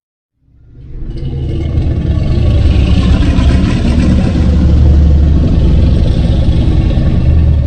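A loud, rough, low rumble from a Godzilla film sound effect. It swells in about half a second in and then holds steady.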